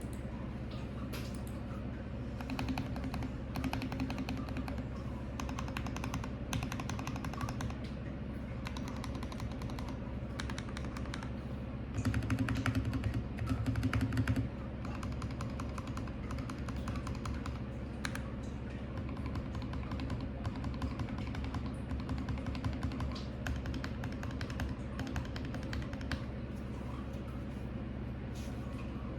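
Typing on a Royal Kludge RK G68 mechanical keyboard with lubed Kailh Box Red linear switches and cherry-profile keycaps: a steady patter of keystrokes. There are two louder, deeper stretches a little under halfway through.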